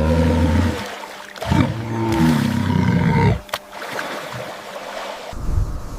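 A big cat roaring twice: a short roar, then a longer one about a second and a half in.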